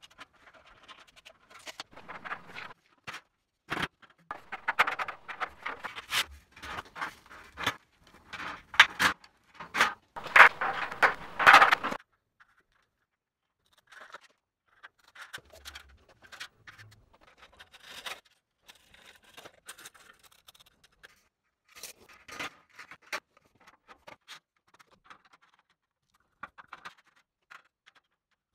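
Metal drywall profiles being handled and fitted: scraping and knocking of galvanized steel track against the wall, loudest and densest in the first twelve seconds. After that come scattered light clicks and taps.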